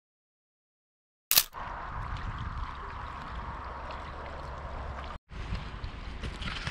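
Silent for about a second, then a sharp click as the sound comes in, followed by steady outdoor ambience: low wind rumble on the microphone and water lapping at a stone shore. The sound drops out briefly about five seconds in.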